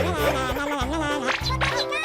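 Background music: a bass line under a melody with sliding notes.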